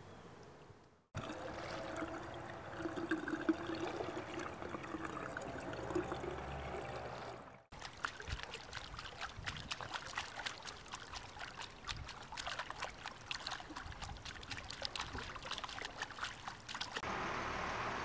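Bare feet kicking and splashing in swimming-pool water, a dense run of small splashes and trickles after gentler sloshing in the first few seconds. About a second before the end the splashing stops abruptly and a steady hiss takes over.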